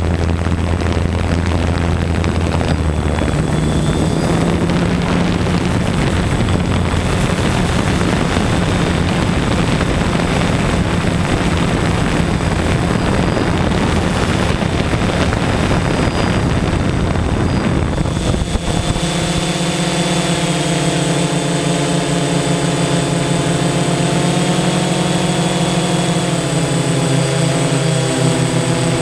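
Steady engine and propeller noise of the aircraft carrying the camera, mixed with rushing noise. About two-thirds of the way through it changes abruptly to a steadier hum made of several held tones.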